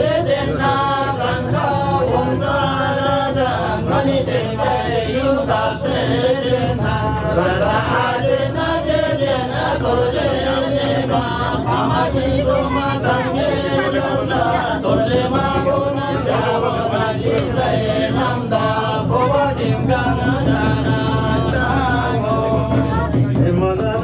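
A group of men chanting a ritual prayer together in a steady, continuous drone.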